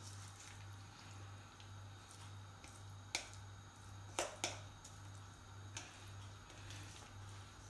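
Frying pan with oil heating on a stove burner, giving a few faint sharp pops and ticks between about three and six seconds in, over a low steady hum.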